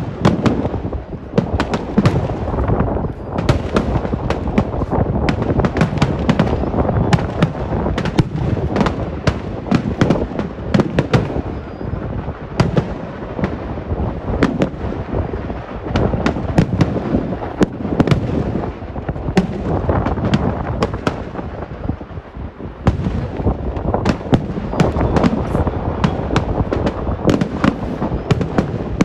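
A vedikettu fireworks barrage: a dense, unbroken run of sharp aerial salute bangs, many a second, overlapping into a continuous rumble, with a brief dip about three-quarters of the way through.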